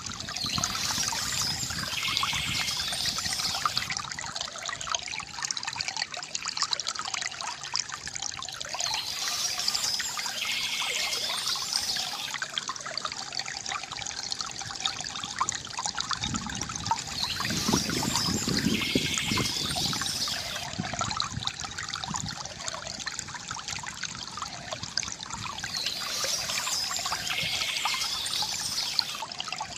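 Water trickling and splashing steadily from a bamboo fountain, swelling and easing in a cycle of about eight seconds.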